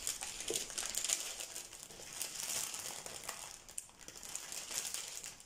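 Plastic packaging crinkling and rustling as hands rummage through small zip bags of diamond painting drills, with scattered sharper crackles.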